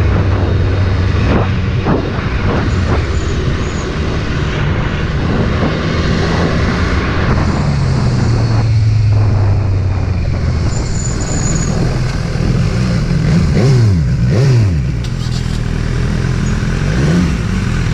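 BMW motorcycle engine running under way, with a steady rush of wind noise. In the last few seconds the engine pitch falls and rises several times as the bike slows.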